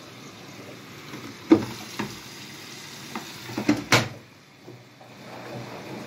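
A few sharp knocks and clicks on the plastic top and control panel of a Bosch washing machine as a pet moves about on it. Single knocks come about one and a half and two seconds in, then a quick cluster with the loudest near four seconds, over a steady low hiss.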